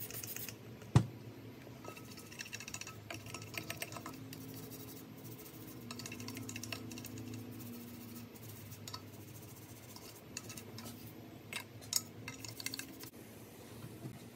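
Hand work on small parts and tools: light clinks and clatter, with one sharp knock about a second in and another cluster of clicks near the end, over a low steady hum.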